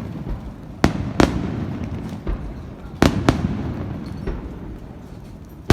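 Fireworks bursting: a pair of sharp bangs about a second in and another pair about three seconds in, with fainter pops between and a low rumble lingering after each bang.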